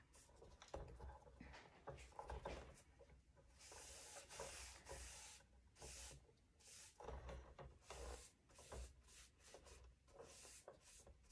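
Faint swishing of a Cling On paintbrush brushing primer onto a cabinet door, in a run of short, irregular strokes.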